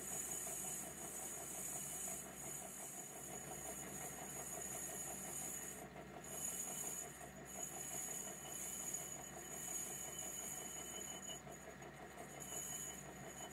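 Metal-turning lathe running steadily while the tool takes a light finishing cut across the tapered tread of a cast locomotive wheel: an even hiss with a steady high whine.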